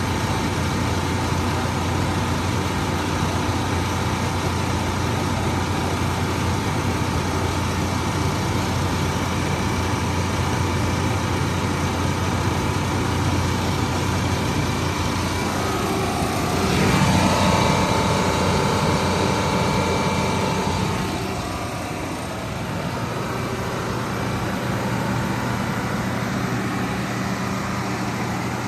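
Detroit 8V92TT two-stroke V8 diesel running a Kohler generator set at a steady 1800 rpm with no load on it. It swells louder for a few seconds past the middle, then settles back.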